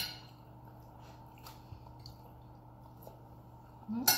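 Quiet eating at a table: soft chewing and small mouth sounds, with a sharp clink of cutlery on a plate at the start and a louder clink near the end.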